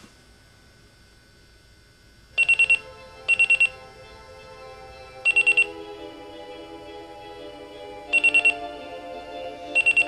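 Digital alarm clock beeping in groups of four quick high beeps, five groups at uneven gaps starting about two seconds in. Soft music comes in underneath from about the same time.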